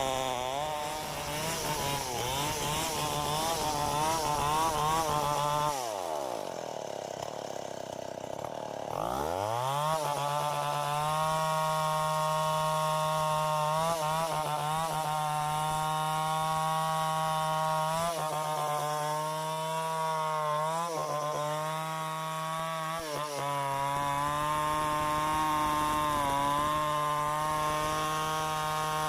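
Tecomec chainsaw running at full revs while cutting through wood, its engine note wavering under load. About six seconds in the revs fall away, then climb back to full speed around ten seconds in.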